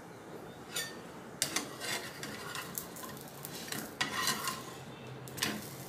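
Spatula scraping across a nonstick frying pan in several short strokes as it works under a cooking pancake to loosen and flip it, over a faint steady sizzle.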